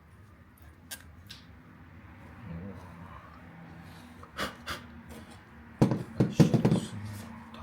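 Hands working on metal parts and tools: a few scattered clicks, then a quick run of loud knocks and rattles about six seconds in.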